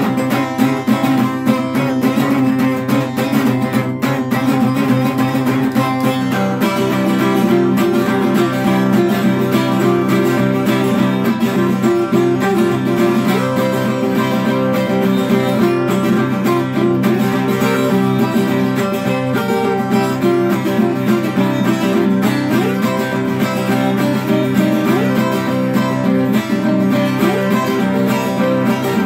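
Acoustic guitar played solo, a steady flow of picked and strummed notes without a break.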